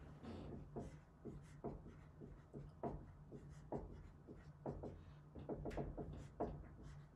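Dry-erase marker writing on a whiteboard: a run of short, irregular squeaks and scrapes of the pen strokes.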